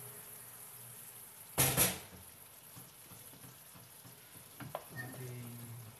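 Whole chicken sizzling in oil in an open pot, a steady high hiss. About a second and a half in, a brief loud double clatter as the glass pot lid is set down.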